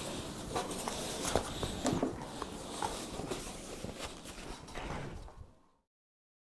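Soft rustling, scuffing and light knocks as a person handles a sneaker, pulls it on and moves about. It cuts off to silence about five and a half seconds in.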